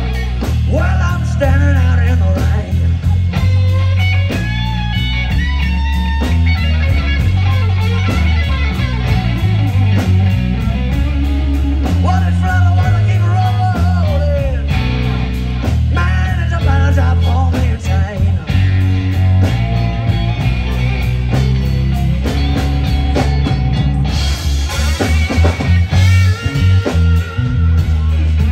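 Live electric blues band playing a slow blues: electric guitar lines over bass and drums, with sung vocals at times.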